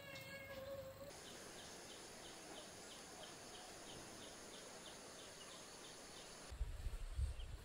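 Faint steady high-pitched insect drone with a short chirp repeating about three times a second; it cuts in about a second in and stops abruptly near the end. A held, pitched tone comes before it, and a low buffeting rumble, like wind on the microphone, comes after.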